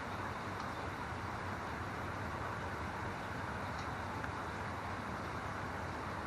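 Steady background noise, a low rumble under an even hiss, with a couple of faint small ticks.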